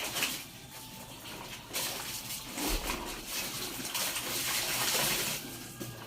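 Water splashing and sloshing in uneven surges as laundry is rinsed and scrubbed by hand in a basin.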